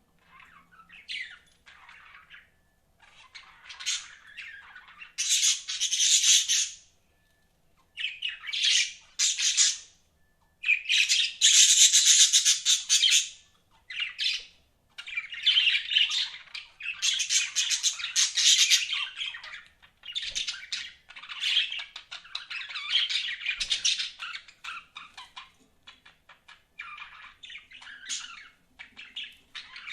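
Budgerigars chattering and squawking in bursts of a second or two with short pauses between them.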